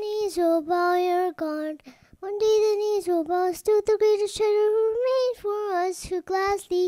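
A young girl singing solo into a handheld microphone, unaccompanied, in short sung phrases with a brief pause about two seconds in.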